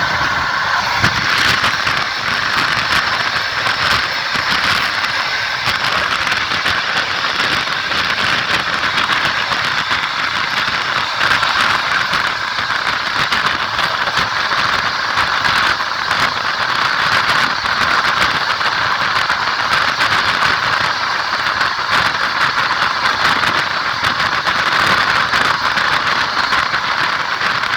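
Train in motion heard from a carriage window: a loud, steady rush of running noise, with the wheels clattering on the rails as a constant run of clicks.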